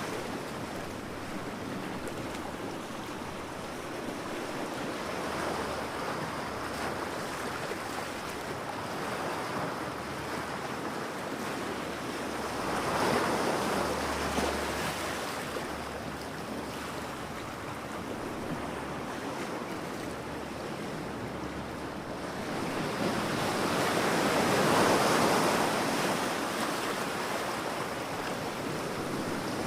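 Sea waves breaking on a beach: continuous surf that slowly swells and falls back, with one larger wave breaking about halfway through and a louder one near the end.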